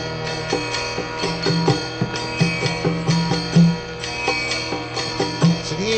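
Instrumental interlude in devotional chant music: a plucked string instrument like a sitar plays a run of notes over a steady drone.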